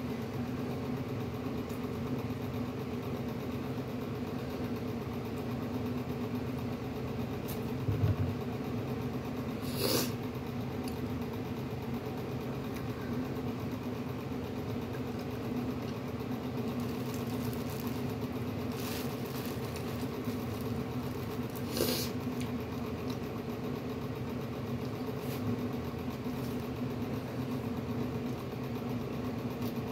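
A steady mechanical hum, like a motor running, with a soft thump about eight seconds in and a couple of brief sharp crackles, about ten seconds in and again a little past twenty seconds.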